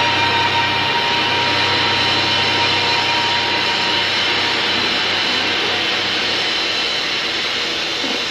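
A loud, steady rushing noise with a few faint held tones in it, easing off slightly towards the end: an animation soundtrack effect, not a real machine.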